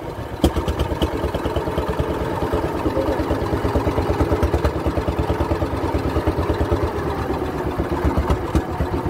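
Engine of a small wooden passenger boat under way, running steadily with a fast, even putter. A single sharp knock sounds about half a second in.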